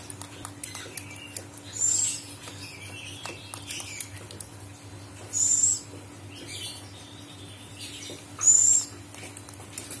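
Buffy fish owl giving three short, high-pitched hissing calls with a thin whistle in them, about three seconds apart, over a faint steady low hum.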